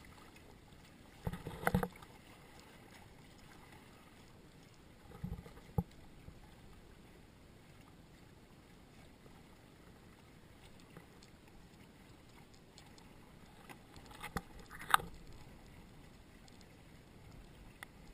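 Faint steady rush of water and wind on a Hobie Cat catamaran under sail, with a few short knocks and bumps, the sharpest about fifteen seconds in.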